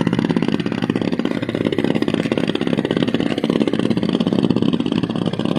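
An engine running steadily nearby, with a fast, even pulse.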